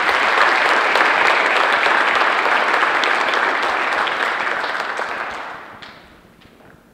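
Audience applauding, then dying away over the last couple of seconds.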